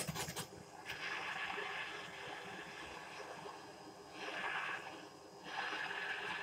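A gas torch flame hissing steadily after a click, heating a moped exhaust to burn out the carbon deposits; the hiss swells twice, near the middle and near the end.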